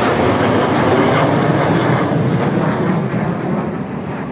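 Jet engine roar of a formation of military fighter jets passing low overhead, a steady rushing noise that slowly fades as they fly away.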